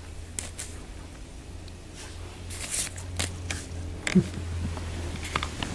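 Scattered light taps, scratches and rustles of a cat batting at a spare button and clothes label.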